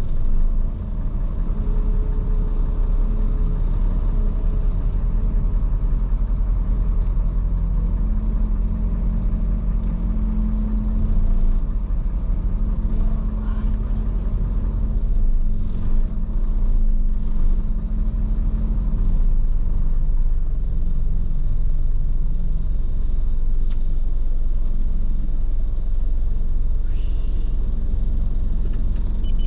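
Tractor-trailer truck cruising on the expressway: a steady low engine drone and road rumble with a constant hum.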